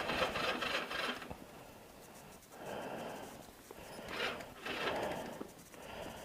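Honda Rebel's electric starter grinding over sluggishly in several short, rasping tries. The battery is too cold to crank the engine, and it does not start.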